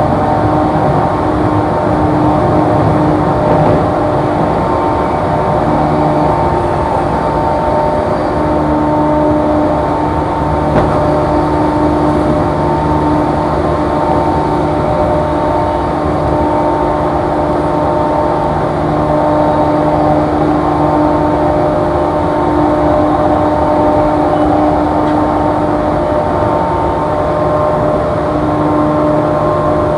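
A JR East E235-series electric train heard from inside a passenger car, running at a steady speed. A continuous rumble of wheels on rail carries a steady hum of several tones from the traction motors and gearing.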